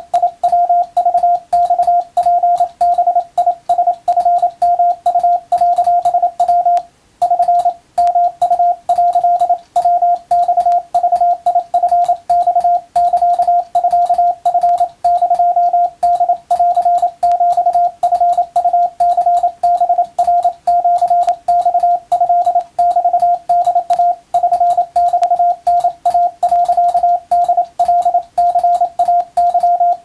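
Japanese wabun Morse code sent by hand on a telegraph key, heard as a sidetone beep keyed on and off in a quick run of dots and dashes. The tone is one steady mid pitch, and the sending pauses briefly about seven seconds in.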